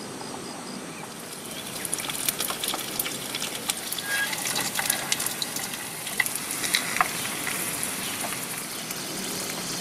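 Bakwan (cabbage fritters) frying in hot oil: a steady sizzle with scattered crackles and pops that grow busier about two seconds in.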